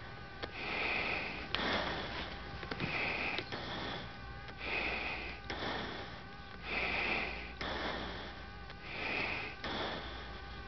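Fighter pilot's breathing picked up by his oxygen-mask microphone: regular breaths in and out, about one a second, over a steady low hum.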